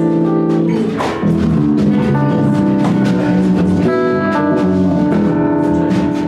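Live band music: sustained chords and melody over a drum kit keeping a steady beat.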